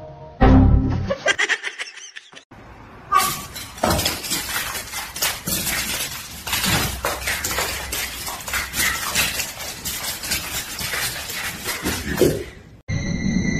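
A short loud low burst about half a second in, then, from about three seconds in, a dense clatter of many quick scratches and knocks as a small dog and a kitten scrabble and tussle on a hard stone floor, stopping abruptly near the end.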